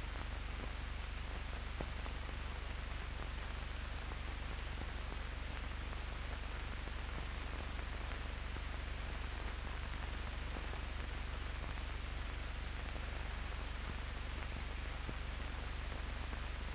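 Steady hiss and low hum of an old optical film soundtrack, with no other sound standing out.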